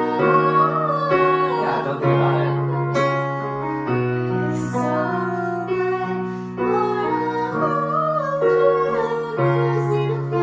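A young woman singing in short phrases, accompanied by a keyboard piano playing sustained chords that change every second or two.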